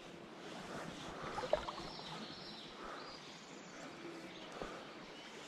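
Quiet river ambience, a soft even rush of flowing water, with a few faint handling clicks and one sharper click about a second and a half in.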